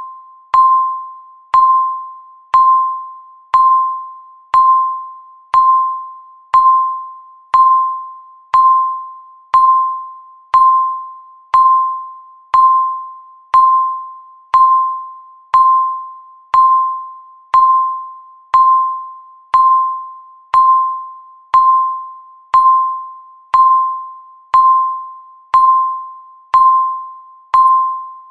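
Countdown timer beeping once a second: a single short electronic tone that starts sharply and fades away, repeated evenly.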